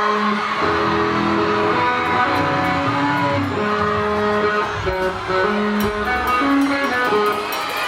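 A live band playing through a loud concert sound system, guitars to the fore, with held notes moving from one pitch to the next.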